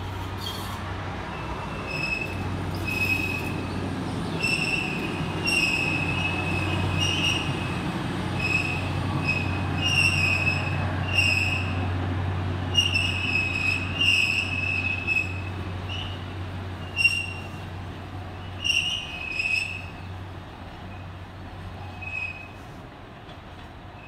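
Alishan Forest Railway narrow-gauge train passing: a steady low locomotive drone under many short, high wheel squeals, loudest around the middle and fading away near the end.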